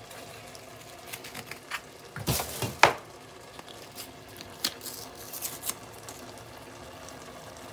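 A metal spoon clinking against a glass jar of dried parsley: two sharp knocks a little after two seconds in, the second the loudest, then a run of lighter clicks.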